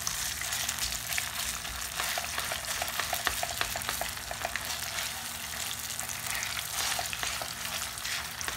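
Grated boiled potato and chopped nuts frying in hot ghee in a frying pan while a silicone spatula stirs them continuously: a steady sizzling hiss with many small crackles.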